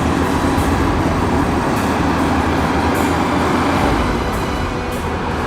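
Bulldozer running, a steady engine drone with faint clanks from its steel tracks.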